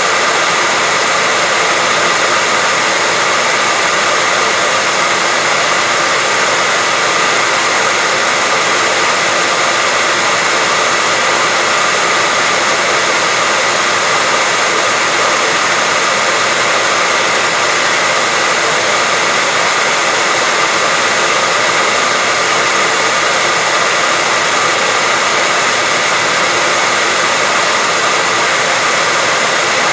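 Hair dryer running steadily: a constant, even hiss of blown air with a faint steady whine from the motor, played as white noise to lull a baby to sleep.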